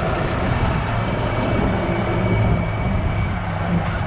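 Road traffic noise dominated by a heavy semi truck's diesel engine running close by, a steady low hum over tyre noise.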